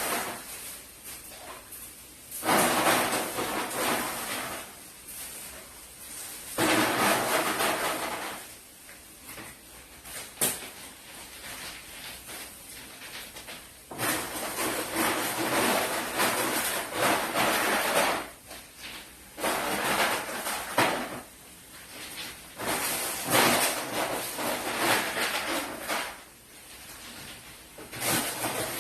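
Repeated bursts of rustling, each lasting one to four seconds with short pauses between, and a single sharp click about ten seconds in.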